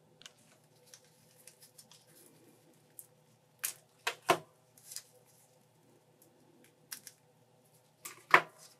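Small plastic clicks and snaps of an action figure's parts being pulled apart and handled: a few sharp clicks about four seconds in and the loudest snap near the end, with lighter ticks in between.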